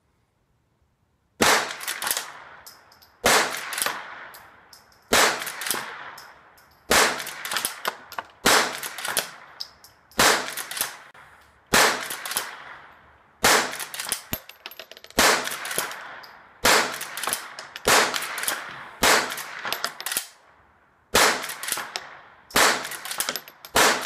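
Henry Classic .22 lever-action rifle firing .22 Long Rifle rounds in quick succession, a shot every one and a half to two seconds, with the clack of the lever being cycled between shots. The shooting starts about a second and a half in.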